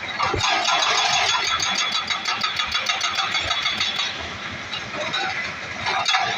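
Heavy machinery's diesel engine running under load with a pulsing, rattly sound, easing off slightly about two-thirds of the way through.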